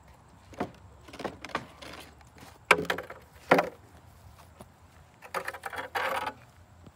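Wooden loading ramps knocking and scraping against the trailer edge and concrete as they are pulled down and dragged: scattered knocks, two sharp loud ones around three seconds in, then a rattling scrape near the end.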